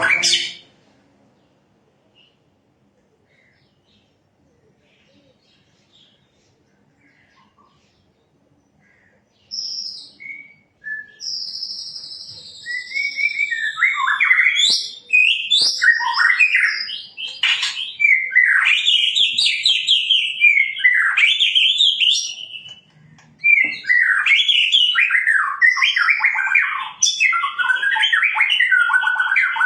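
About nine seconds of near silence, then a shama sings: loud, varied whistles and rapid phrases that sweep up and down in pitch, with a short pause a little before the end.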